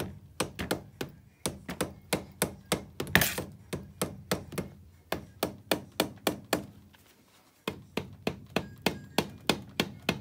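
A mallet taps lightly and repeatedly, about three times a second, on the cylinder head of a Jianshe JS171FFM 250 cc ATV engine to break the head free of its head gasket. The tapping stops for a moment about seven seconds in, then starts again.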